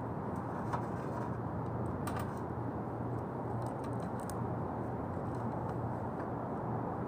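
Scattered light clicks and taps of small metal parts and wiring being handled at an air-conditioner condenser's electrical panel, a few around 1, 2 and 4 seconds in, over a steady low rumble.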